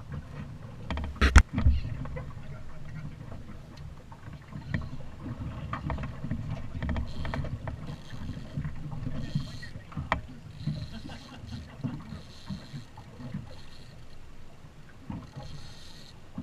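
Water lapping and wind noise around a small fishing boat sitting on the water, with no motor running. About a second in there is a sharp knock on the boat, and lighter clicks and taps are scattered through the rest.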